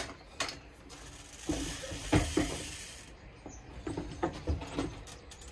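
Scattered light knocks, clicks and rustling of a person handling a bike and moving away from it, with a couple of firmer knocks a little past the two-second mark.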